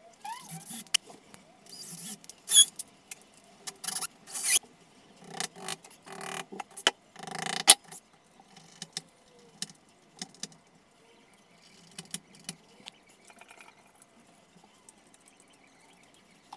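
A paper bag of fittings rustling in a series of short bursts, then scattered small clicks and taps of metal fixings being handled.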